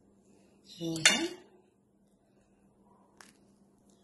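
A metal kitchen utensil clinks against a dish about a second in, overlapping a short voice sound. A lighter single click follows at about three seconds.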